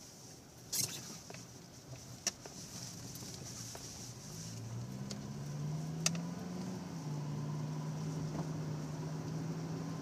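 Car engine and road noise heard from inside the cabin; about four and a half seconds in the engine note rises as the car picks up speed, then holds steady. A few sharp clicks sound along the way.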